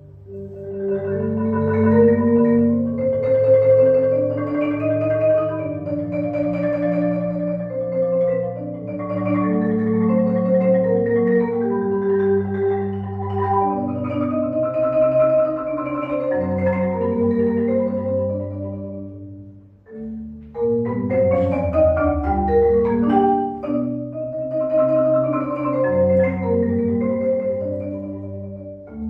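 Marimba played with mallets in a concerto, with piano accompaniment holding low notes beneath. The music thins almost to a pause about twenty seconds in, then picks up again with quick runs.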